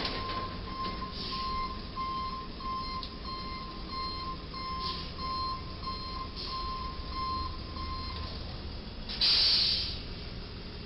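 Box truck's reversing alarm beeping steadily, about two beeps a second, as the truck backs up; the beeping stops about eight seconds in. A short loud hiss comes near the end.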